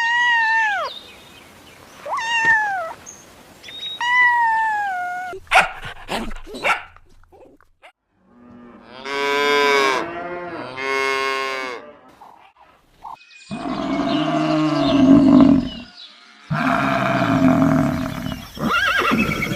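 A string of separate farm animal calls: three short falling calls at the start, then two longer wavering calls, then deeper calls of cattle mooing in the second half.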